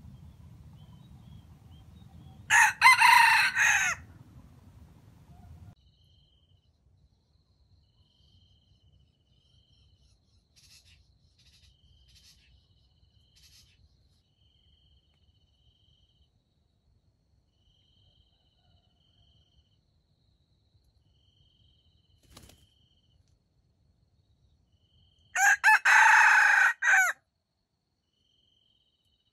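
Red junglefowl rooster crowing twice, each crow short and loud, about twenty seconds apart.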